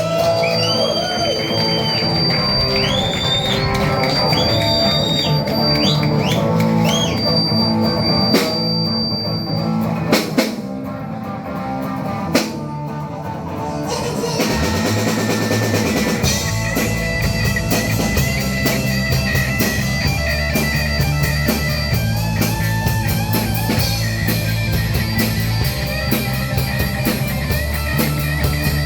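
Rock band playing an instrumental passage: an electric guitar lead with bent notes over bass and drums, thinning out about halfway through before the full band with busy drums picks up again.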